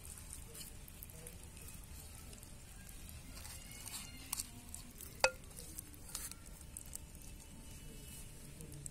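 Hands rubbing spice paste into a raw whole chicken in a clay bowl, making soft, irregular wet crackles. There is one sharp click about five seconds in.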